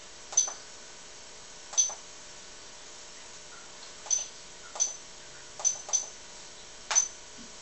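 Key clicks from a Critical CX2-G2 tattoo power supply as its buttons are pressed: about seven short, high beep-clicks at uneven intervals, two of them close together just before six seconds in.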